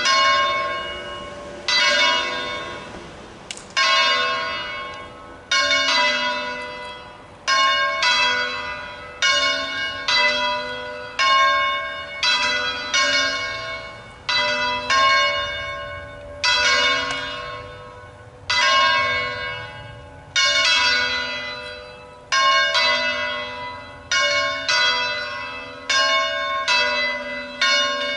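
The two smaller bells of a three-bell set in A, swing-ringing, one of them the C♯ bell. Each clapper strike rings out and fades, and the strikes come every one to two seconds in an uneven, overlapping pattern.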